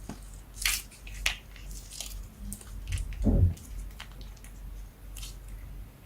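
Slime being pressed and squished by hand, with a string of crisp crackles and one deeper squelch about three seconds in.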